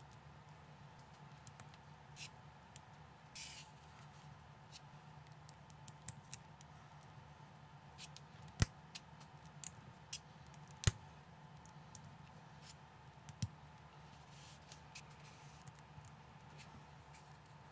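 LEGO-compatible plastic bricks being handled and pressed together: scattered small clicks and snaps, two louder snaps about halfway through, over a faint steady hum.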